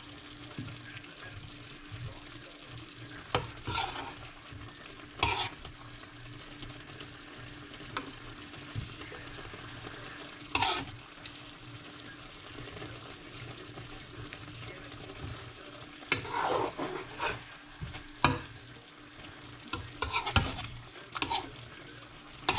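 A serving spoon scraping and clinking against a ceramic plate about eight times as chicken and sauce are spooned out, over a steady low hiss.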